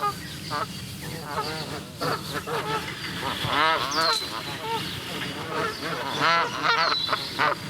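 A flock of Canada geese honking, several birds calling over one another in quick runs of honks, busiest about halfway through and again near the end.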